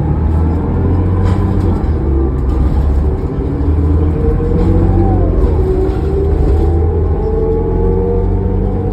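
Inside a 2005 New Flyer D40LF diesel transit bus under way: a steady low engine drone with several thin whining tones above it that shift in pitch, one gliding down about halfway through.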